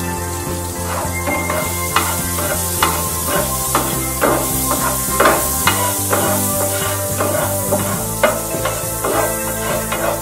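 A wooden spatula stirring and scraping food in a nonstick frying pan, with a steady sizzle of frying in hot fat and repeated short scraping knocks against the pan. Background music with changing chords plays underneath.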